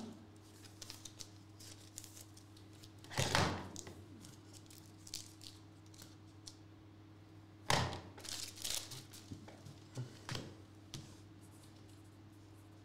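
Trading cards and foil packs being handled on a table: two brief rustling swishes a few seconds apart, then a run of light taps and clicks, over a steady low electrical hum.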